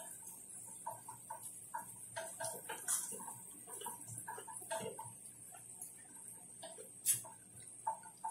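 A person chewing raw orange bell pepper: irregular crunches and wet mouth clicks, with two sharper crunches about three seconds in and about seven seconds in, over a steady high hiss.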